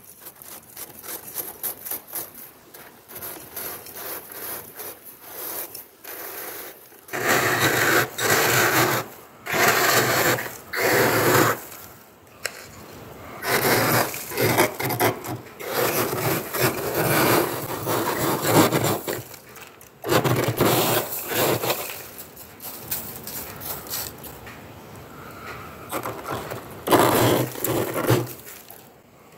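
Metal spoon scraping thick freezer frost, the loosened frost crunching as it drops into a steel plate. The scraping comes in strokes and bursts, lighter at first and much louder from about seven seconds in.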